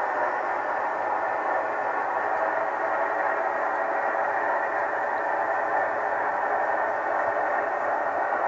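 Heljan 7mm-scale Class 37 model locomotive's DCC sound decoder playing the English Electric diesel engine sound through the model's small on-board speaker as the model runs. The engine sound is steady and thin, with almost no bass.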